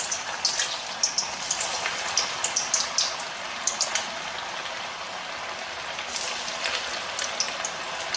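Bread vadas deep-frying in hot oil in a stainless-steel kadai: a steady sizzle with frequent sharp crackles and pops, thickest in the first few seconds.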